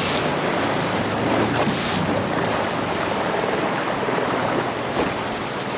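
Water rushing and splashing against the hull of a small boat under way, with wind buffeting the microphone.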